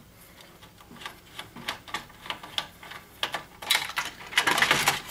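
Small plastic clicks and taps as parts and wire connectors inside a projector's opened plastic housing are handled and pulled loose, turning into a dense run of clicking and rattling near the end.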